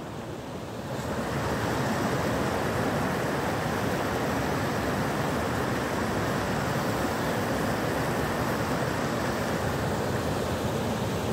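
Fast river water rushing over and around rocks in shallow rapids: a steady hiss that swells over the first second or so and then holds.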